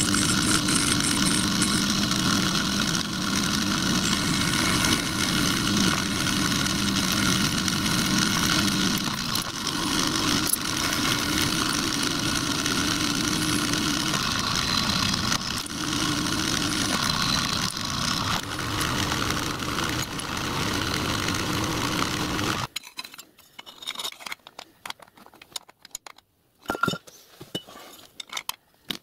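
Metal lathe running steadily while turning aluminium bar into small rivets, a loud machine drone with several held tones. About 23 seconds in it cuts off abruptly, giving way to light clicks and a sharp knock of aluminium parts handled on a workbench.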